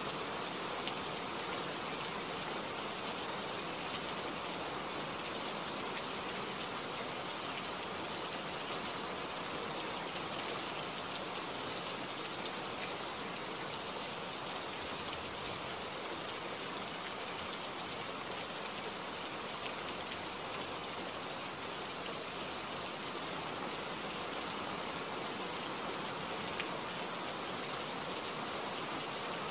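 Steady forest rain falling, an even, unbroken hiss of drops.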